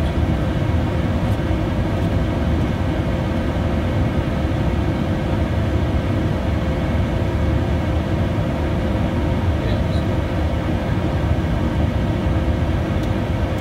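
Steady cabin noise inside a Bombardier Challenger 350 business jet in flight: a constant rush of airflow and the drone of its twin turbofan engines, with a steady hum running through it.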